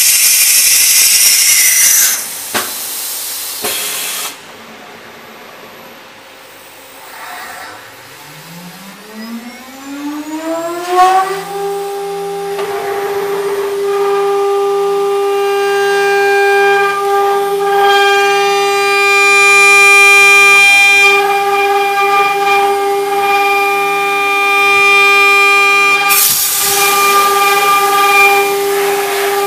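CNC engraving router with an automatic tool changer: a burst of compressed-air hiss as the spindle takes a tool, then the spindle spins up with a rising whine over about four seconds and runs at a steady high whine while it cuts a metal shoe-sole mould. A second loud hiss of air comes near the end.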